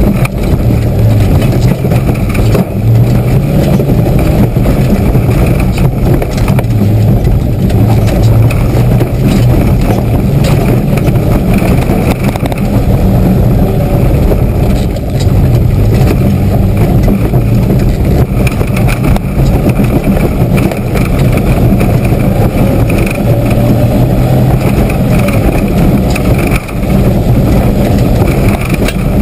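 Mitsubishi 4x4's engine working hard as the vehicle is driven over a rough dirt track, heard loud from inside the cabin, with knocks and rattles throughout. The engine note dips briefly a few times.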